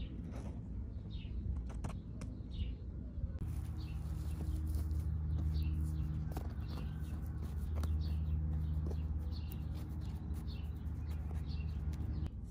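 Small birds chirping over and over above a steady low hum, with scattered soft crackles as dry sphagnum moss is pressed into a felt pocket by hand.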